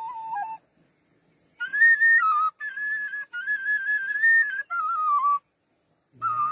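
Fluier (Romanian shepherd's flute) in A playing an old doina tune. A held, wavering note ends about half a second in. After a short pause comes a higher, ornamented melody, broken by brief breath pauses, with a longer pause near the end before the next phrase starts.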